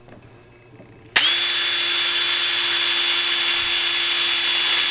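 A small power tool fitted with a wire brush switches on about a second in, spins up quickly and runs at a steady high whine with a hiss. It is cleaning old brass bare so that it will take solder.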